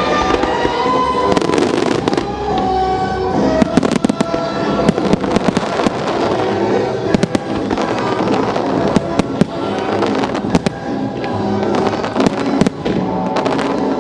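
Aerial fireworks shells bursting in quick volleys of sharp cracks and bangs, heaviest in the middle and near the end, over music playing throughout for a fireworks show set to music.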